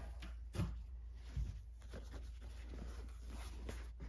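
Boot-box packing (foam and a cloth shoe bag) being handled: rustling and rubbing, with two soft thuds about half a second and a second and a half in.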